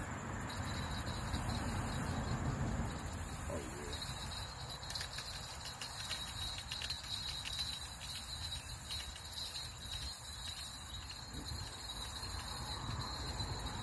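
Insects chirping: a steady high trill with a higher buzz that switches on and off every second or so, over a low outdoor rumble.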